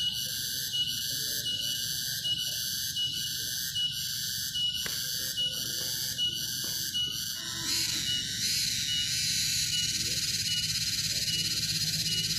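A chorus of forest insects shrilling in high, pulsing trills that repeat about twice a second; the pattern changes about eight seconds in.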